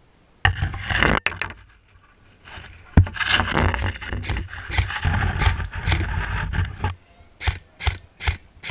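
Scraping and rustling as a player pushes through dry bamboo and undergrowth, in two long stretches. Near the end come short, evenly spaced footfalls, about two or three a second.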